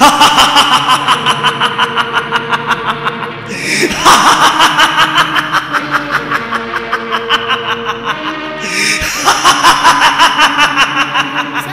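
Scornful villain's laughter in three long bouts of rapid "ha-ha-ha" pulses, each starting loud and trailing off, over a steady background music drone.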